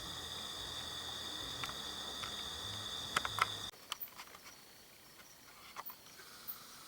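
Insects chirring steadily, with a high even drone that cuts off abruptly about halfway through, leaving fainter insect sound. A few sharp clicks come just before the cut-off, and more are scattered after it.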